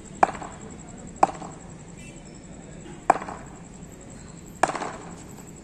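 Cricket bat tapped on a concrete pitch while the batsman waits for the delivery: four sharp wooden knocks, unevenly spaced, each with a short ring.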